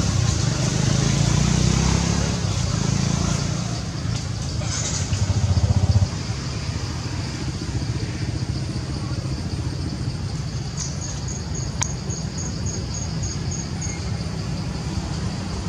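Outdoor background noise: a steady low rumble under a high hiss. About six seconds in, a swelling rumble cuts off abruptly. Near the end comes a short run of quick high ticks, about four a second, with one sharp click among them.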